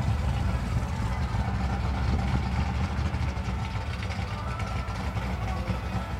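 Car engines idling at a drag strip start line: a steady low rumble with no revving.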